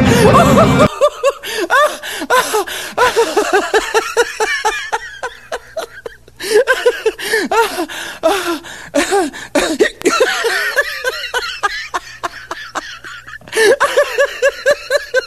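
Laughter in quick repeated bursts, rising and falling in pitch, laid over end cards as a laugh track. It dies down briefly about six seconds in and again near the end. Music cuts off about a second in.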